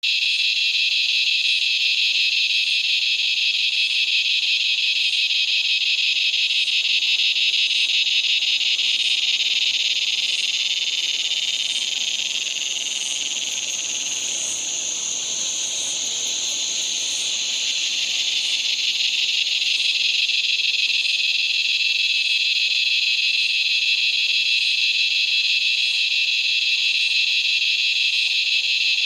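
Razor grinder cicada (Henicopsaltria eydouxii) calling: a loud, continuous high-pitched buzz that starts abruptly, softens and wavers for a few seconds midway, then steadies again.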